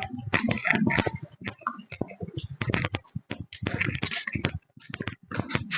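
A man coughing repeatedly in short, irregular bursts: a drawn-out coughing fit.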